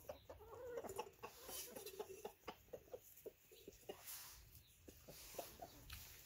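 Blue-laced red Wyandotte rooster's food call, faint: a low drawn-out call over the first two seconds or so, then short clucks. It is the call a rooster gives to bring his hens over to food he has found.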